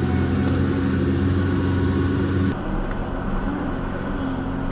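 Jeep Gladiator's 3.0-litre EcoDiesel V6 idling steadily while crawling up a steep off-camber climb in four-low. The sound changes abruptly about halfway through.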